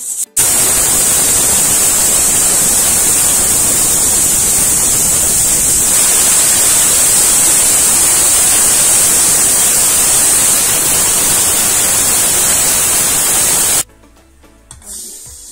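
Pressure cooker whistle: steam venting from the weight valve in a loud, steady hiss for about thirteen seconds, starting and stopping abruptly. The whistle signals that the cooker has come up to pressure, and cooks count these whistles to time the cooking.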